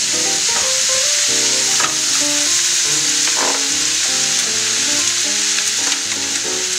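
Sliced vegetables (onion, carrot, mushroom, pepper) frying in a hot pan with a steady sizzle while cooked glass noodles are pushed in off a cutting board and stirred in.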